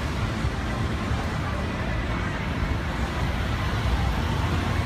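Steady low rumble of city street traffic, with faint voices in the background.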